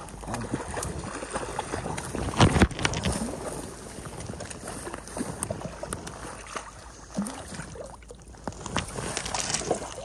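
Irregular rustling, scuffing and water splashing as a hooked brown trout is brought in at the stream's edge, through dry grass and mud, with a loud knock about two and a half seconds in.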